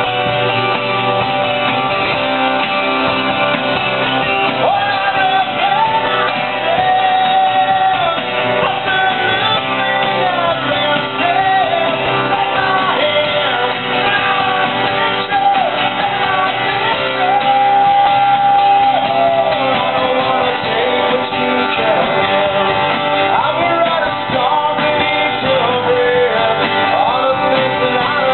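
Live acoustic band playing: strummed acoustic guitars with a bass under them, and a singer's melody over them from about four seconds in.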